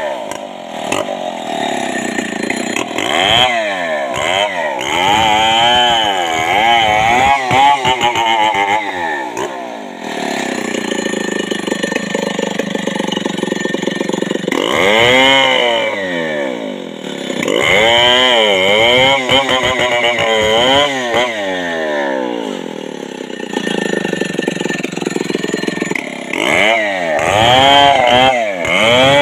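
Stihl 070 two-stroke chainsaw cutting through a felled kapok trunk. Its engine speed rises and falls again and again as the chain works into the log.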